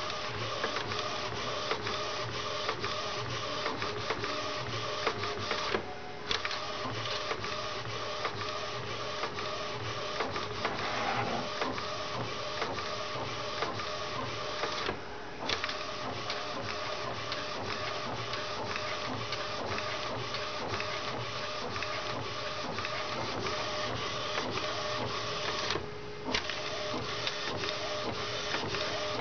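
Epson T1100 inkjet printer, converted for direct-to-garment printing, running a print job: a steady motor whir with a dense rattle of fine ticks. It breaks off briefly three times, about every nine to ten seconds.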